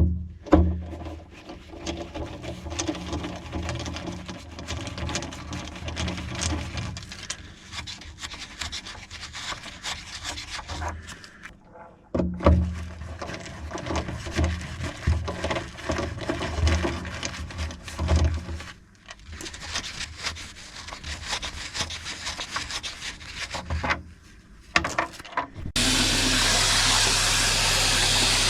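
Wood being sanded in two long stretches, with a short stop about twelve seconds in and shorter bursts later, over a steady low hum. Near the end a steady hiss starts.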